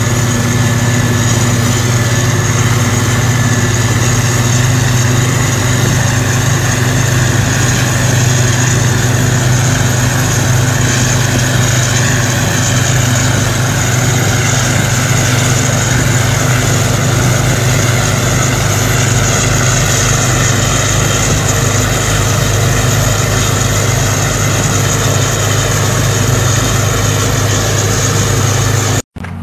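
Boat engine running steadily at speed, a loud even drone with a strong low hum and a steady hiss above it, holding one pitch throughout. It cuts off abruptly just before the end.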